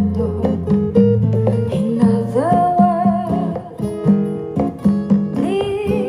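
A song with plucked acoustic guitar and a singing voice, the notes repeating at an even beat and the voice gliding through a held line in the middle.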